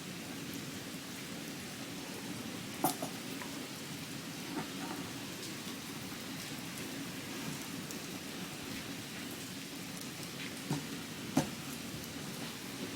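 Steady rain falling, with a few sharp ticks of drops striking a hard surface, the loudest about three seconds in and near the end.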